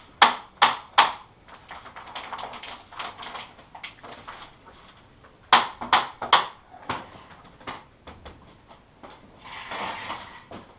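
Staple gun firing three quick staples through polythene sheeting into a timber frame, then three more about five seconds later. The plastic sheet crinkles between the shots and rustles louder near the end as it is handled and pulled tight.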